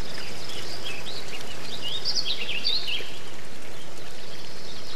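Birds chirping and twittering in brief high calls, thickest in the middle, over a steady outdoor background hiss.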